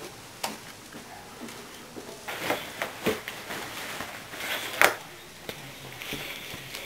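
Rustling and handling noise of people moving about with a handheld camera in a small room, with scattered light knocks and one sharper knock about five seconds in.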